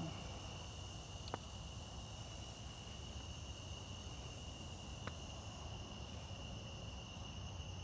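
Steady insect chorus: one unbroken high-pitched drone, with two faint clicks about a second and five seconds in.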